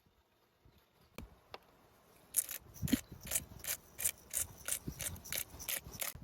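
Salt grinder being twisted over a cooking pot: a run of short rasping grinds, about three a second, starting a couple of seconds in, after a few single clicks.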